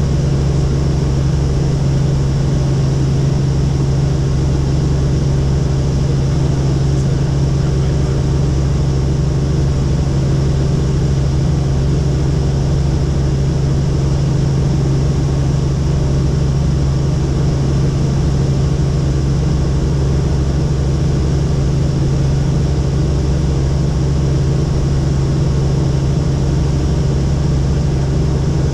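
Helicopter in flight heard from inside the cabin: a loud, steady drone with a deep, unchanging hum.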